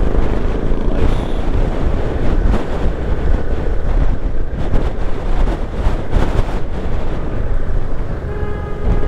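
Strong wind buffeting the microphone of a camera on a moving motorcycle, a heavy, uneven low rumble that hides most of the engine and road noise.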